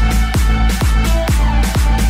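Electronic dance music from a house-style mashup: a steady four-on-the-floor kick drum, a little over two beats a second, under a deep bass and short synth notes, with no vocals.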